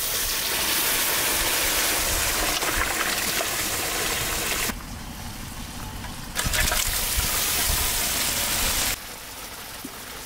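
Boiled goat trotters and their stock pouring from a pot into a hot kadai of fried masala: gushing liquid with a loud hiss. The hiss drops away about 4.5 s in, comes back about 6.5 s in, and falls lower near the end.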